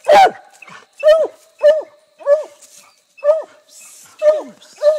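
Hound barking at a tree in a steady string of about seven short barks, the first the loudest. It is treeing, barking at game it has chased up the tree.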